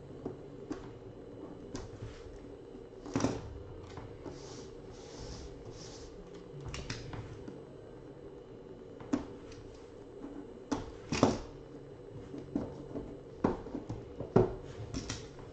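Hands handling a hard black Panini Flawless briefcase card box: scattered clicks, taps and knocks of fingers and objects against the case, the loudest about three and eleven seconds in, over a low steady hum.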